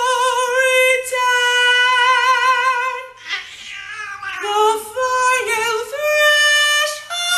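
A man sings a high held note with vibrato, then a cat meows loudly in reply, in long sliding, rough-edged yowls.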